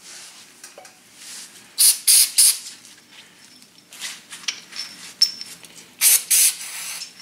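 Aerosol can of brake parts cleaner spraying in short hissing bursts: three quick ones about two seconds in and a longer spray near the end.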